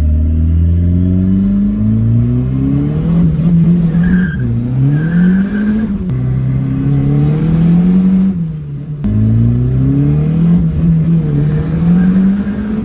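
Turbocharged, carbureted VW AP four-cylinder engine in a VW Gol accelerating through the gears. The engine note climbs and drops back at each gearchange, several times, with a short lift off about two-thirds of the way through.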